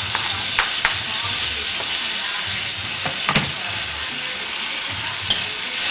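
Chicken pieces and freshly added onions sizzling in hot oil in a small pan: a steady hiss with a few sharp pops or clicks scattered through it.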